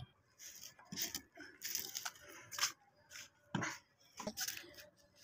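Faint, irregular crackling and rustling: a series of short scrapes and crackles from hands working over boiled eggs on a disposable plate.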